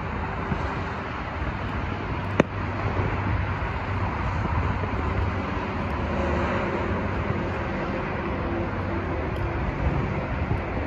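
Steady road-traffic and engine noise with a low hum, and a single sharp crack about two and a half seconds in.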